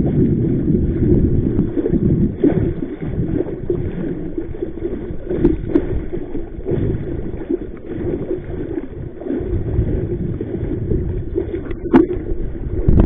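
Strong gusty wind buffeting the microphone over choppy water lapping at a small inflatable boat, a low uneven rumble that rises and falls. A single sharp knock comes near the end.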